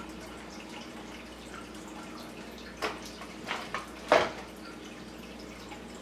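Four small metallic clicks and taps of a screwdriver and screws on the NVR's sheet-metal case while the hard drive is screwed in, the last the loudest, over a faint steady hum.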